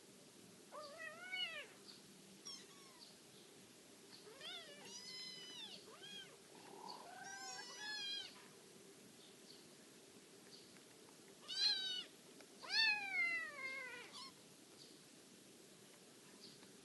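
Kittens mewing: a string of high-pitched meows in two runs, with a quiet gap between them and the loudest calls in the second half.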